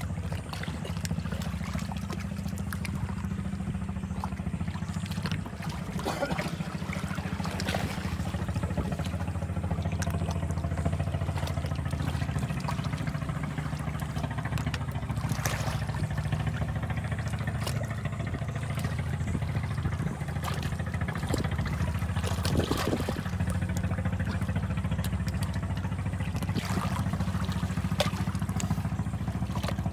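An engine running steadily, a low even hum, with small trickles and ticks of water lapping over it.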